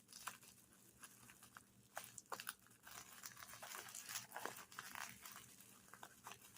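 Faint crinkling and rustling of packaging being handled and opened, with scattered small clicks.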